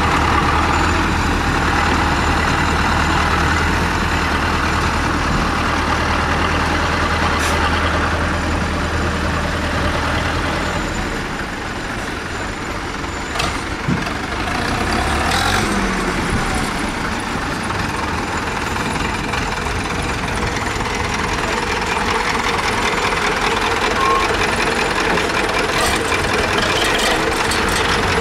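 Tractor engines running as the machines pass. A steady low engine note holds for the first third, then drops away, and an engine revs up briefly about halfway through over a continuing rumble.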